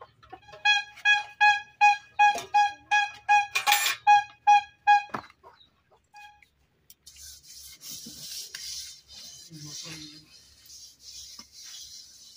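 A loud run of about a dozen short notes at one pitch, about two and a half a second, with a single knock among them, stops after about five seconds. After a pause comes a soft, steady scratchy rubbing as a bare hand smooths a coat of wet mud over a round pot.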